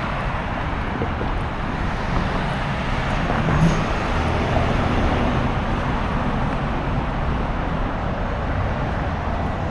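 Steady road-traffic noise: a continuous low rumble with hiss and no separate events.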